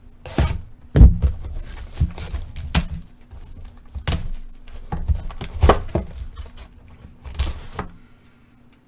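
A cardboard trading-card hobby box being handled and opened by hand, giving a string of dull knocks and thuds with quieter handling noise between them.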